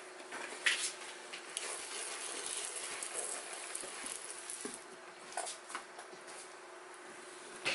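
Hand pump spray bottle misting water into a snake enclosure, several short hissing squirts with droplets pattering on the bark substrate and the hide rock.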